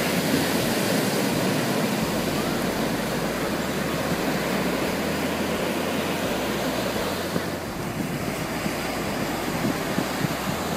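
Surf washing in and out over the sand at the shoreline, a steady rush of breaking waves, with wind rumbling on the microphone.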